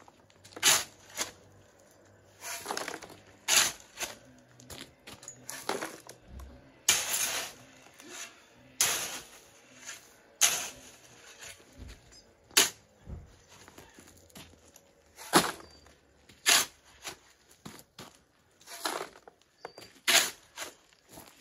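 Steel shovel blade scraping and crunching into gravelly soil, a short scrape every second or two at an irregular pace.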